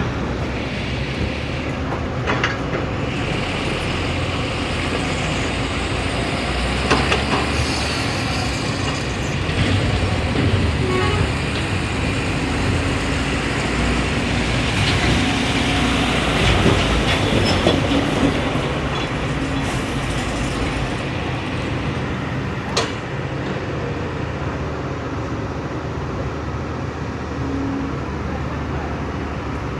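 Kobelco excavator's diesel engine running steadily under load with its hydraulics working, the engine note rising and falling; a few sharp metallic clanks stand out.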